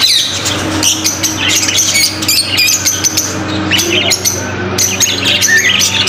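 Many caged small parrots, lovebirds and budgerigars, chirping and squawking at once in quick, overlapping calls, over a steady low hum.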